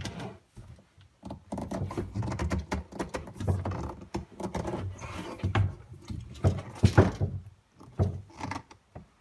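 A 3/4-inch PVC pipe being pushed down through a friction-fit rubber uni-seal in the wall of a plastic trash can: irregular rubbing and scraping of pipe against rubber and plastic, with several sharp knocks of the pipe and can.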